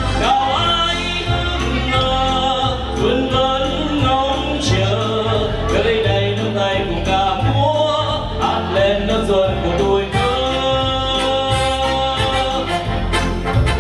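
A man singing a Vietnamese song into a microphone, with electronic keyboard accompaniment that carries a bass line underneath.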